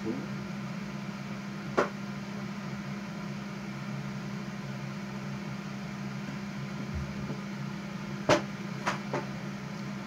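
A steady low machine-like hum, with single sharp clicks about two seconds in and three more close together near the end.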